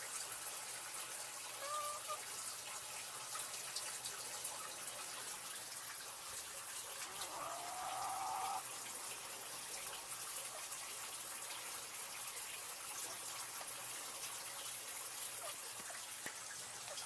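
Water running and trickling steadily, with a few short faint chirps, one of them rising about eight seconds in.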